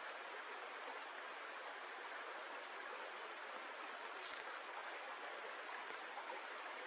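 Steady rush of flowing stream water, with a few faint clicks in the second half.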